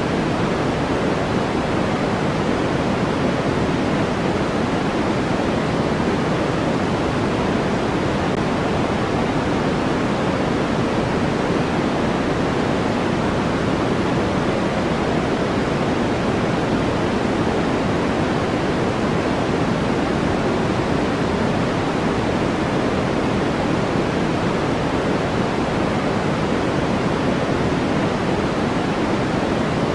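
Steady, unchanging synthetic noise of a sleep-aid noise track: an even hiss with most of its weight in the low and middle pitches and little at the top.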